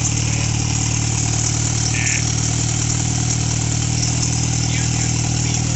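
1987 Chrysler Conquest's turbocharged 2.6-litre four-cylinder idling steadily with no muffler or exhaust fitted, running well on a newly installed fuel pump.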